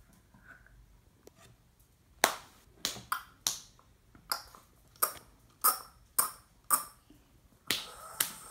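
A spoon clinking against a cup while medicine is stirred: about a dozen sharp, ringing clinks at an uneven pace, roughly two a second, starting about two seconds in.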